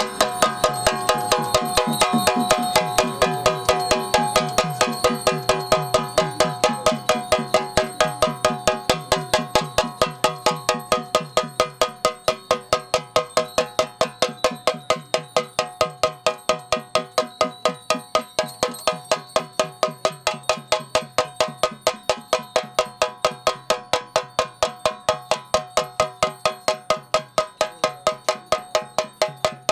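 Double-headed cylindrical drum beaten with a curved stick in a steady, even beat of about three strokes a second, with a bright ringing tone.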